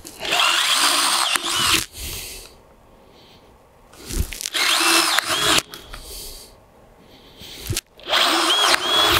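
Power drill with a 5/8-inch bit boring through a vinyl pergola beam, in three runs of about a second and a half each. The bit cuts through the vinyl and into the aluminum insert inside the beam, leaving a mark on it.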